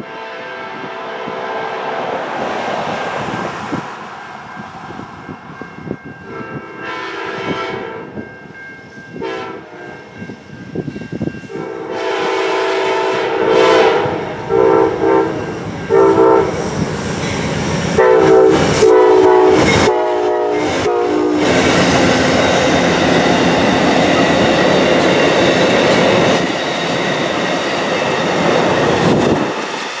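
Amtrak passenger train's GE P42DC locomotive horn played as a horn show: long blasts at first, then a run of quick short toots mixed with longer ones as it draws near. About two-thirds of the way through the horn gives way to the passenger cars rolling past, with wheels clicking over the rail joints.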